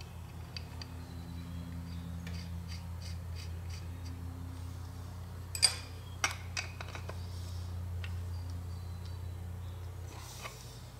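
Light metallic clicks and taps of small parts being handled and fitted on a Carter BBD carburetor body, with a few sharper clicks about halfway through, over a steady low hum.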